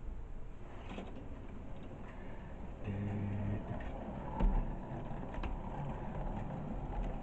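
Model railway freight train running on the track, its wheels and motor clattering and whirring, growing louder about three seconds in as it comes into view, with a brief steady hum then and a single louder knock a moment later.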